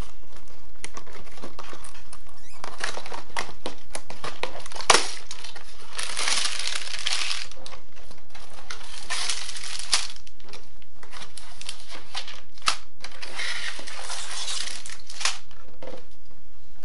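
Cardboard Lego box being opened and handled, with plastic bags of bricks crinkling and clicking as they are pulled out and set down. One louder sharp click about five seconds in.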